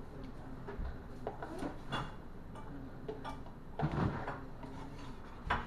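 Scattered light knocks and clicks of kitchen items being handled on a counter, with a louder clatter about four seconds in and another near the end.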